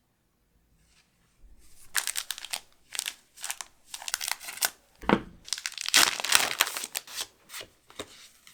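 Foil Pokémon booster pack wrapper crinkling and crackling as it is handled, in dense crisp bursts, with a soft thud about halfway through.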